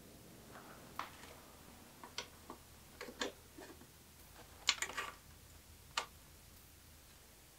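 Scattered light clicks and taps in an irregular pattern, a few close together near the middle, from bicycle parts or tools being handled during the rebuild.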